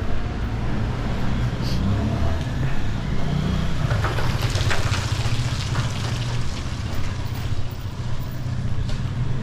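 City street traffic, with motor vehicle engines running steadily close by and a short burst of higher clatter midway.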